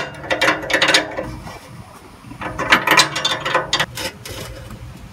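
Quick runs of metallic clicking in two bursts, about two seconds apart, as a combination wrench is slid over a newly fitted oxygen sensor and worked to tighten it.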